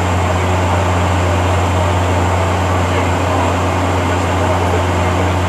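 Steady airliner cabin noise during the climb after take-off: engine and airflow noise holding an even level, with a constant deep hum under it.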